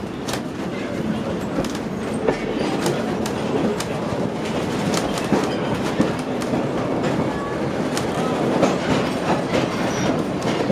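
Passenger train hauled by a General Electric diesel locomotive, heard from aboard: a steady rumble of wheels rolling on the rails, with irregular clicks and clacks throughout.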